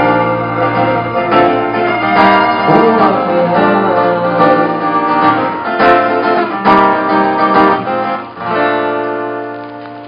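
Live acoustic guitar strummed under singing voices, a stroke about every second. Near the end a final chord rings out and fades away.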